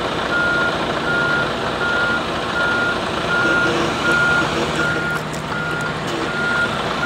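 Backup alarm of a Freightliner tractor-trailer reversing slowly: steady beeps at one pitch, a little more than one a second, over the truck's engine noise.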